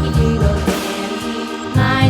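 Background music with singing over a pulsing bass line.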